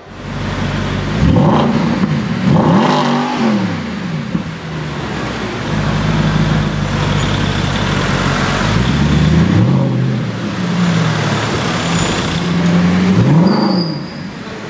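Mercedes-Benz SLS AMG Black Series 6.2-litre V8 revving in an echoing underground car park: two revs in the first few seconds, a steady fast idle, then four short blips in the second half.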